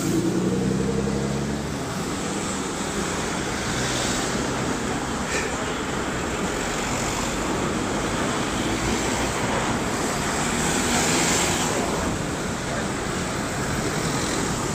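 Road traffic driving past close by: a bus's engine pulls away in the first couple of seconds, then cars pass with steady engine and tyre noise, swelling about eleven seconds in as one goes by.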